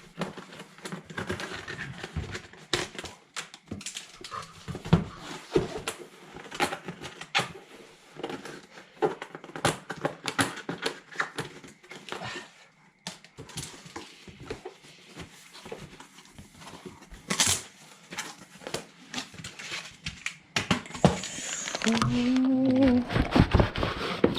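A cardboard parts box being opened and unpacked by hand: a long run of irregular clicks, scrapes and rustles of cardboard and wrapping.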